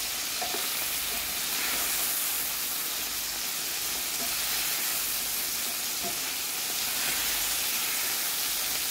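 Shell-on tiger prawns sizzling steadily as they fry in a little olive oil in a non-stick pan, turned now and then with a spatula.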